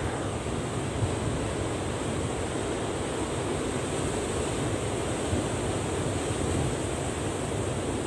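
Heavy typhoon surf breaking and washing in, a steady rushing roar with a low rumble and no single crash standing out. Wind buffets the microphone.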